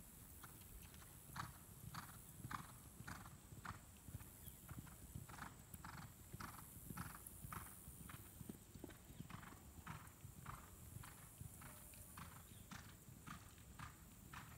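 A ridden horse cantering on a sand arena: faint, regular hoofbeats, about two strides a second.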